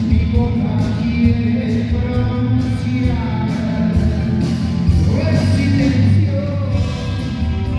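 Rock band playing live, electric guitar, bass guitar, drums and keyboard, with a man singing over them.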